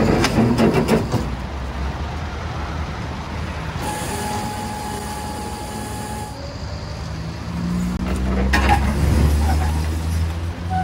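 Heavy motor vehicle engines running, with a deep truck-engine rumble that swells about three-quarters of the way through. Metallic knocks and clatter come near the start, and a steady whine holds for about two seconds midway.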